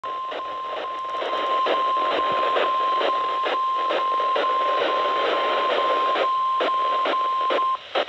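NOAA Weather Radio warning alarm tone, the steady 1050 Hz tone that comes before a warning broadcast, sounding from a Midland weather radio's speaker over static hiss with regular crackles about twice a second. It gets louder about a second in as the volume is turned up, and cuts off just before the end.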